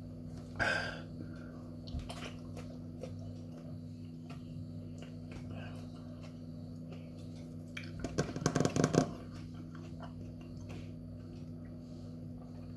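A person eating a thawed Carolina Reaper pepper: quiet chewing and mouth clicks, with a short rough, crackly burst of throat or mouth noise about eight seconds in, over a steady low hum.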